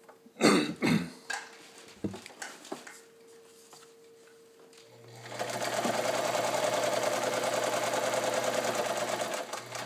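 A few knocks, then about halfway through a Kenmore 158.1750 sewing machine starts up and runs steadily, sewing a straight stitch through four layers of medium-weight upholstery fabric, with a brief slowing near the end.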